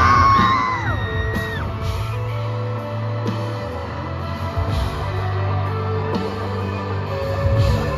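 Live rock band playing loudly through the stage sound system: electric guitars with a high note that bends down and fades in the first second or so, then steady held notes over a low drone.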